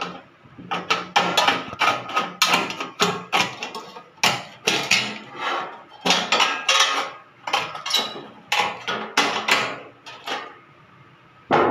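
Hand metal snips cutting white-painted sheet-metal gutter flashing: a rapid run of crisp metallic snips, about two to three a second, with a short pause near the end before one last cut.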